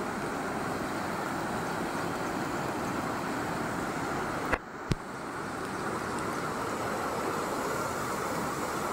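Muddy floodwater rushing steadily across a road, an even wash of water noise. About halfway through, two sharp clicks about half a second apart cut in, with a brief drop in level between them.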